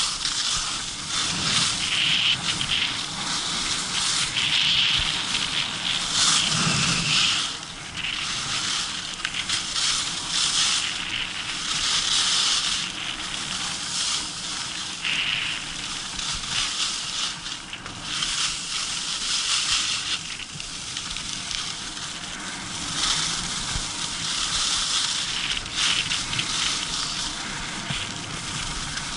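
Skis hissing and scraping over hard-packed snow, the sound swelling and easing again every second or two with the turns.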